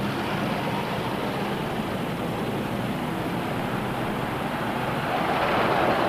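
Traffic noise of cars on a city street, swelling near the end as a car approaches.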